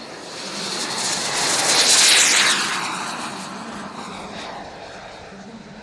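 Radio-controlled model jet's turbine passing close and fast: a loud hissing whine swells to a peak about two seconds in, then drops in pitch and fades as the model goes by.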